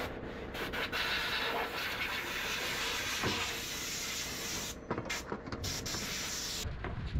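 A steady, loud hiss that breaks off briefly near the end, with a few light knocks as a plastic step panel is pressed into place on a truck cab.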